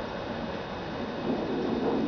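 High wind gusting around a trailer: a steady rush that swells in the second half.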